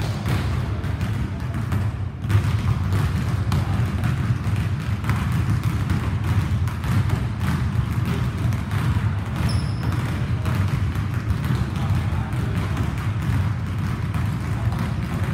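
Basketball bouncing on a hardwood gym floor, with repeated knocks over a steady low hum.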